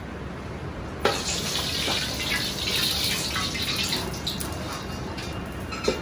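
Water hitting the hot wok, starting suddenly about a second in with a hissing, sloshing rush that eases after about three seconds as the wok is rinsed out after cooking. A couple of sharp metal clinks near the end.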